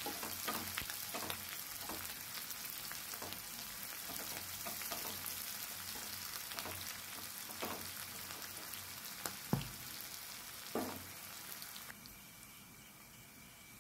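Sliced onions sizzling in hot mustard oil in a non-stick kadhai, stirred with a wooden spatula that scrapes and clicks against the pan. Two louder knocks come near the end, and the sizzling then drops to a quieter hiss.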